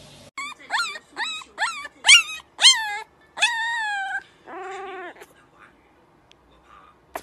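Young puppy crying: a quick run of short, high yelps that rise in pitch, then a longer wail that falls away, and a lower drawn-out cry about five seconds in.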